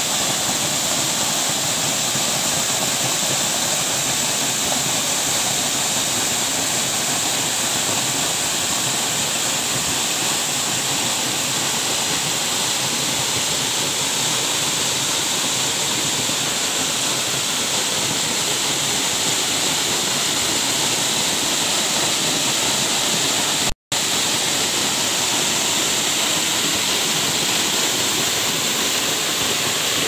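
A thin waterfall splashing into a shallow rock pool: a steady, unbroken rush of falling water. It cuts out for an instant about three quarters of the way through.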